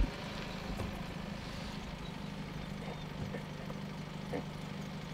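A vehicle engine idling with a steady low hum, with a few faint short clicks over it.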